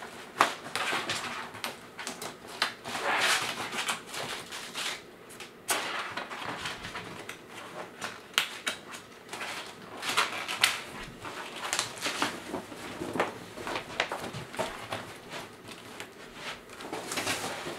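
Silver reflective fabric of a light tent rustling and crinkling as it is pulled, smoothed and tucked over the tent's frame, with scattered light taps and knocks.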